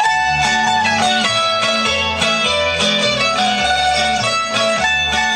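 Traditional folk dance music played on plucked string instruments, a melody over a bass line that moves in steady steps.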